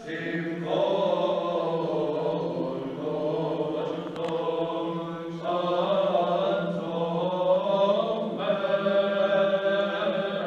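Male choir of Byzantine chanters singing Greek Orthodox chant, the melody moving in phrases over a steady low held drone (the ison).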